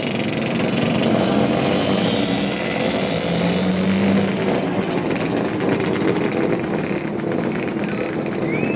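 Several old two-stroke motorcycles running together and revving as riders set off, their engines blowing blue exhaust smoke; one engine rises briefly in pitch about three and a half seconds in.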